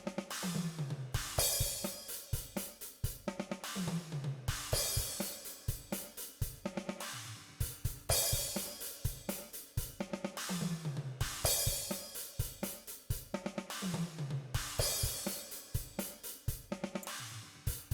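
DrumGizmo virtual drum kit playing back a repeating groove of kick, snare, hi-hat and crash cymbals, looping about every three and a half seconds, with a short room reverb on the simulated overhead bleed.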